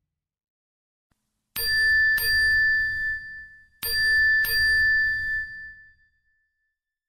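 Bell-like ding sound effect of an end-screen animation: two dings in quick succession, then two more about two seconds later, each pair ringing on one clear high tone that fades over a second or so, with a low rumble under the strikes.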